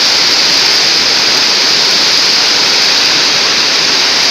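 Heavy rain pouring down in a steady, loud, unbroken rush.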